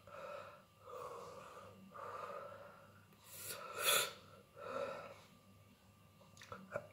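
A man breathing hard in and out through his mouth, in about five heavy breaths, the loudest a sharp hissing intake about four seconds in: panting against the burn of a whole 7 Pot Douglah chilli pod he has just eaten.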